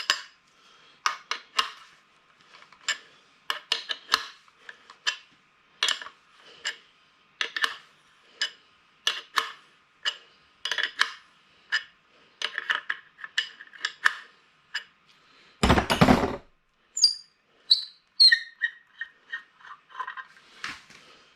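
Metal tools clicking and clinking on the fittings of an air compressor's regulator manifold as a threaded fitting is worked loose with a spanner, in a long run of separate sharp clicks. A single loud knock comes about three-quarters of the way through, followed by a few brief high squeaks and a quick run of small ticks.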